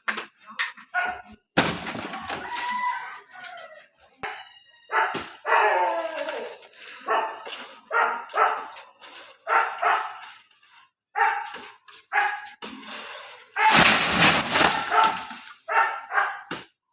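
A dog barking repeatedly in short, regularly spaced barks, with one loud noisy rush lasting about a second and a half near the end.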